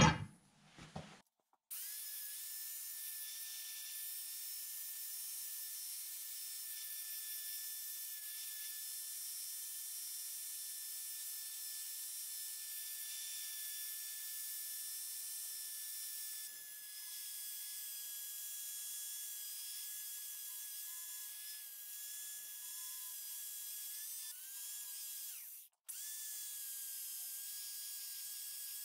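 A sharp knock at the very start, then a handheld electric belt file (power file) starts up and runs with a steady high whine as its narrow sanding belt grinds rust off a steel draw-knife blade. It stops briefly near the end and starts again.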